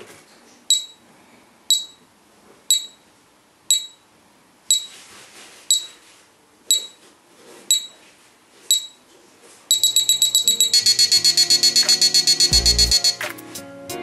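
Bomb-shaped novelty alarm clock beeping: short high beeps about once a second, then about nine seconds in a switch to rapid beeping, about nine a second, for several seconds like a countdown running out. Music comes in underneath the rapid beeping.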